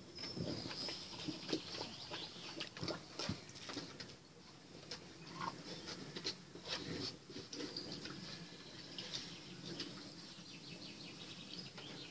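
Water splashing and sloshing in a shallow plastic paddling pool as French bulldog puppies wade and lap at it, with small irregular splashes and drips.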